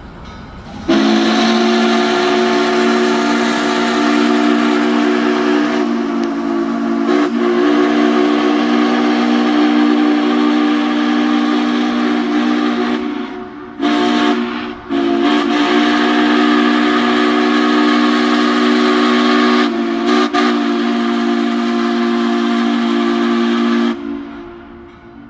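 Steam locomotive No. 1309's whistle blowing a chord of several notes over a hiss of steam. The first long blast starts about a second in and holds for some twelve seconds. A short toot follows, then a second long blast that cuts off about a second before the end.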